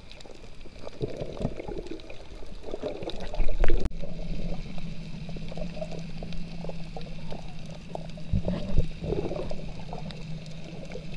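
Underwater water noise heard through a camera's waterproof housing: irregular muffled sloshing and bubbly gurgles. A loud surge ends in a sudden break about four seconds in, after which a steady low hum runs under the water noise.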